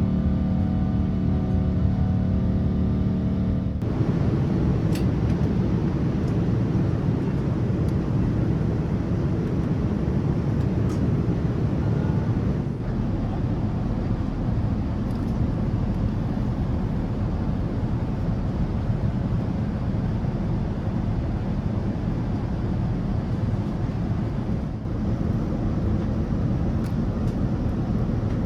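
Steady engine and airflow noise inside the cabin of a Boeing 787-9 airliner, an even rushing drone. Background music ends about four seconds in, leaving only the cabin noise.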